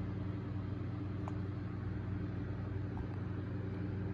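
Steady low mechanical hum with two faint clicks.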